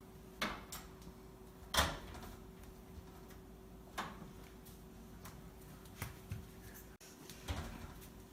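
A few scattered light knocks and clatters over a faint steady hum.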